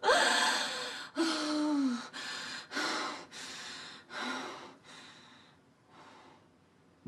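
A woman sobbing: a series of gasping, shaky breaths with short whimpering wails, one falling in pitch in the second second, growing weaker and fading out toward the end.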